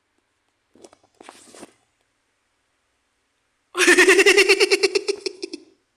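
A cartoon character's high-pitched laugh: a quick run of about twenty rapid pulses that starts loud about four seconds in and fades out over about two seconds, after a couple of faint short vocal sounds about a second in.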